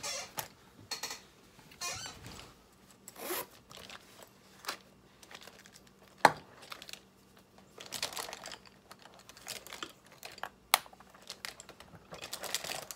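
A zippered fabric pencil case being handled: a zipper pulled open, rustling of the cloth and the pencils inside, and a few sharp clicks and knocks against a plastic light panel, the loudest about six seconds in.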